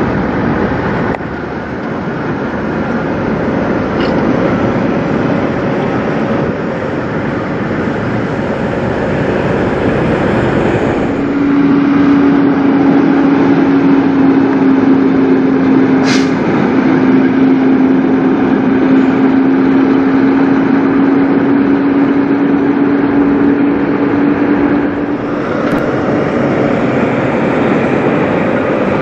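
Diesel engines of semi-trucks hauling trailers, heard one after another in separate shots as each truck moves past at low speed. The middle truck, a Mack, runs with a steady droning engine note, and a brief sharp click comes partway through its pass.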